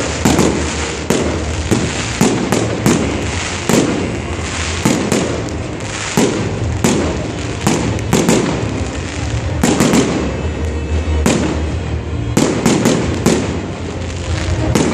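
Fireworks going off in a dense, irregular run of sharp bangs, roughly one to three a second, with crackle between them.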